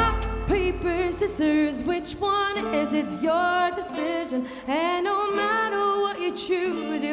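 Live female voice singing long, wavering notes with little or no instrumental backing. The band stops on a loud hit right at the start, and its low rumble fades within the first second.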